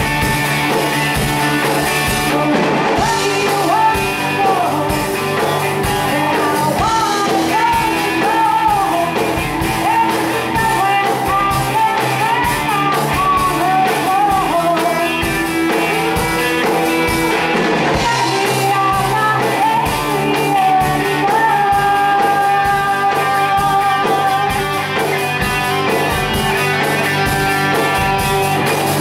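Live rock band playing: a woman singing lead over distorted electric guitars, bass, keyboards and a drum kit, with the sung melody wavering through the first half and held notes later.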